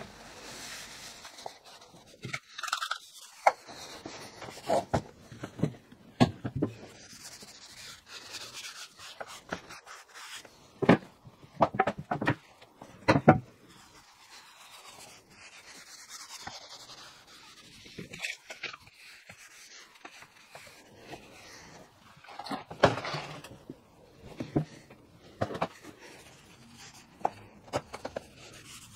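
Cloth rag rubbing oil into a wooden plywood-and-oak chainsaw bar cover, with scattered knocks as the cover is handled on the bench.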